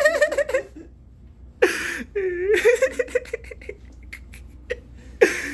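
People's voices talking and chuckling in a small room, with a few short light clicks in between.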